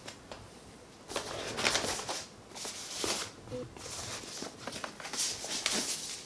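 Foam packing sheet and a fabric laptop sleeve rustling and scraping against a cardboard box as they are lifted out, in several short bursts.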